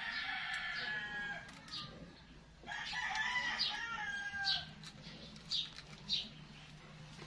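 Roosters crowing twice: one long crow at the start and another about three seconds in, with a few short high chirps between.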